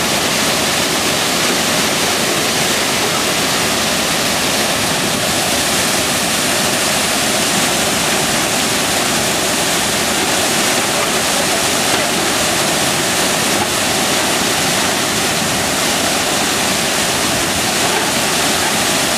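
Muddy floodwater from a rain-filled lake pouring over a rocky ledge as a waterfall: a loud, steady rush of falling water.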